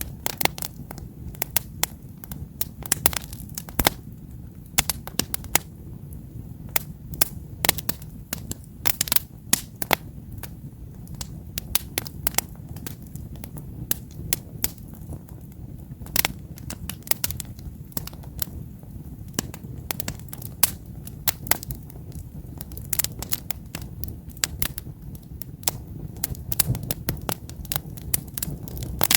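Wood campfire burning: irregular sharp crackles and pops from the burning logs over a steady low rumble of the flames.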